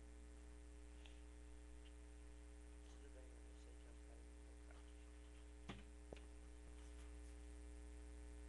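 Near silence: a steady low electrical hum, with a few faint clicks, two of them close together near the six-second mark.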